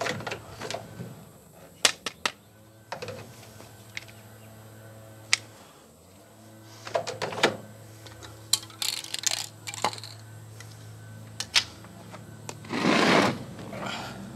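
Handling noises at a front-loading clothes dryer: scattered sharp knocks and clicks and short rustling scrapes, the loudest a half-second scrape near the end, over a steady low hum.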